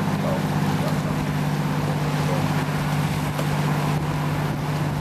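Boat engine running at a steady pitch, a low hum over a wash of water and wind noise; one of the hum's higher tones drops out about four seconds in.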